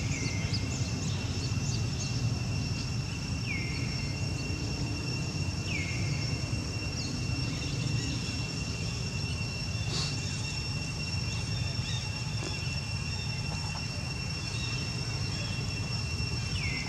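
Outdoor ambience: a steady high insect drone holding two pitches over a low steady rumble. A few brief falling chirps come near the start, twice a few seconds in, and again near the end.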